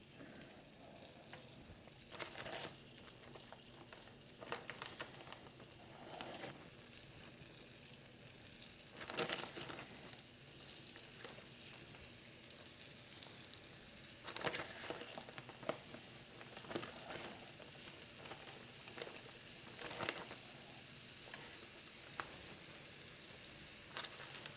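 Flour-coated beef stew meat browning in hot oil in a pan, a faint steady sizzle with louder sizzles every few seconds.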